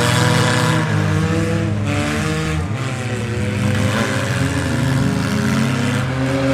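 Engines of several demolition-derby minivans and mini trucks revving and running together, their pitches rising and falling as they drive.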